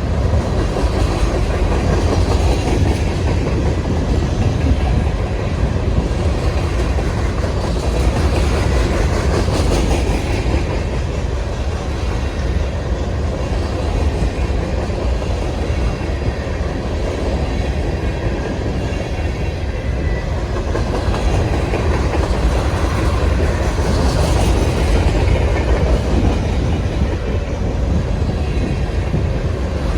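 Freight train cars rolling past, a steady rumble with the clickety-clack of wheels over the rails.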